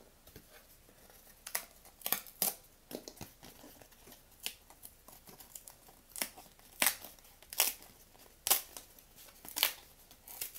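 Scrap pieces of a cardboard corner-protector blank being torn off by hand: about ten short, sharp rips at uneven intervals, with faint rustling of the cardboard between them.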